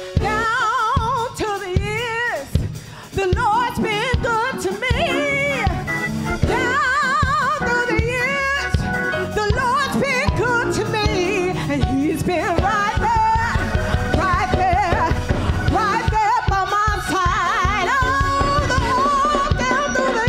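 A woman singing a slow gospel song through a microphone with strong vibrato, over instrumental accompaniment with a steady beat that fills out and gets louder about six seconds in.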